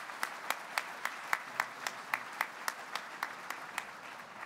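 Audience applauding, with one close-by clapper standing out at about four claps a second; the clapping thins out near the end.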